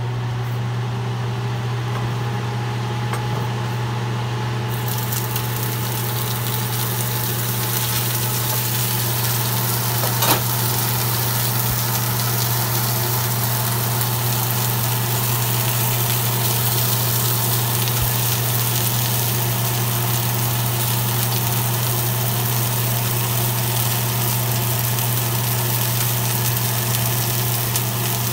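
Oil sizzling in a frying pan as tomato quarters fry, the hiss growing fuller about five seconds in, with a single knock about ten seconds in. A steady low hum runs underneath.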